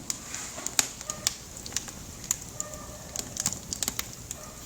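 Firewood burning in a home fireplace, crackling with irregular sharp pops, several a second.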